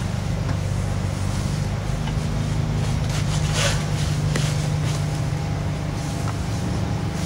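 An engine running steadily nearby, a continuous low hum. A short rustle comes about three and a half seconds in.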